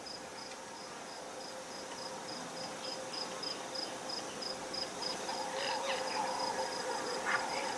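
Insect chirping: a regular, high-pitched chirp repeating about three times a second over a faint steady lower drone.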